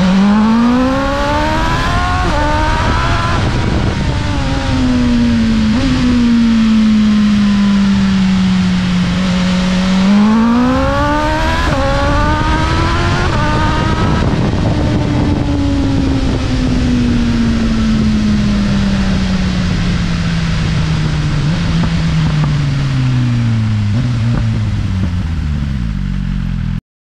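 BMW S1000RR's inline-four engine revving up hard twice under acceleration, then falling slowly in revs for about twelve seconds as the bike slows, with wind rushing over the microphone. The sound cuts off abruptly near the end.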